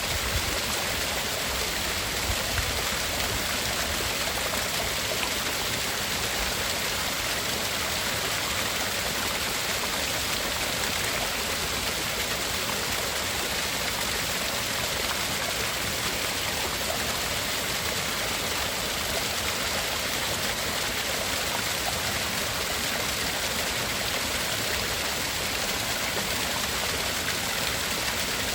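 Steady tinnitus-masking noise: an even, unchanging hiss, stronger in the treble than in the bass.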